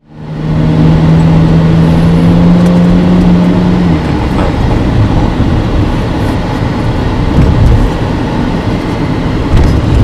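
Engine and road noise heard inside a moving car, with a steady low hum that holds for the first four seconds and then drops away.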